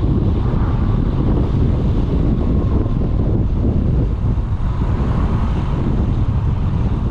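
Steady wind rush on the microphone over the drone of a Yamaha Smax 155 maxi-scooter's single-cylinder engine and tyres, cruising at a constant speed.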